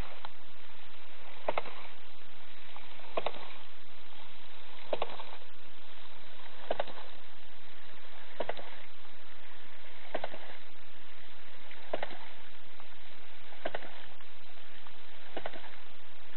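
Hydraulic ram pump cycling: its waste valve, a modified 2-inch foot valve, clacks shut about every 1.7 seconds, with steady water noise between strokes.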